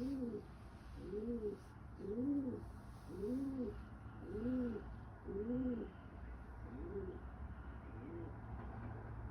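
Pigeon cooing: a run of about eight low coos roughly a second apart, each rising and falling in pitch, the last two fainter.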